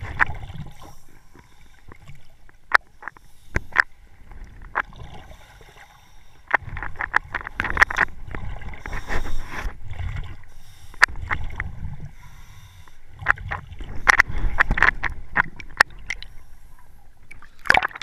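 Muffled underwater sound picked up by an action camera in its waterproof housing: low rumbling and gurgling of moving water that swells in two longer stretches, with many sharp clicks and knocks throughout.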